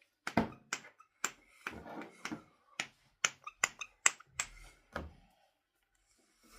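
Irregular sharp plastic clicks and knocks, about a dozen over some five seconds, with a few dull handling thumps: a nebulizer's medicine cup being closed and its parts fitted together.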